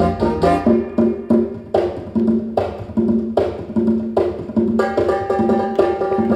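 Music for a dance routine with a steady beat: sharp percussive stabs a little under a second apart over pitched melody and bass.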